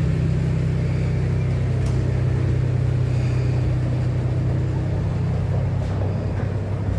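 An engine running steadily with a low, even hum; the hum shifts slightly about six seconds in.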